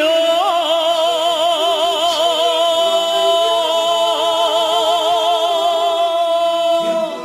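A Sichuan opera singer holds one long high note with a wide, even vibrato over quieter instrumental accompaniment, the note breaking off near the end.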